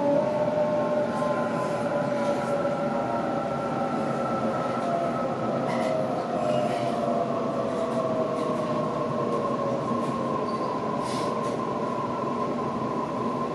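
Sydney Trains Waratah electric train heard from inside the carriage while running between stations: the traction motor and inverter whine slides down in pitch as the train slows, over a steady rumble of wheels on the track.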